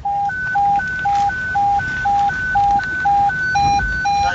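Fire dispatch alert tone: a high and a low electronic beep alternating about twice a second, the pre-alert that signals a call going out to the station crew.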